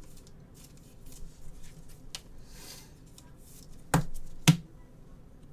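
Trading cards being handled on a table: soft rustling and sliding, then two sharp clicks about half a second apart, about four seconds in.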